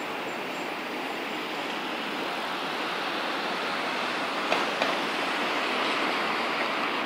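Steady rushing noise without any pitch, with two short clicks close together about four and a half seconds in.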